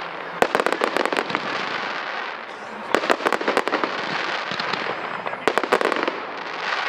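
Fireworks display: aerial shells bursting in rapid volleys of sharp reports, in three clusters about half a second in, three seconds in and five and a half seconds in, with a continuous hissing rush of sparks between them.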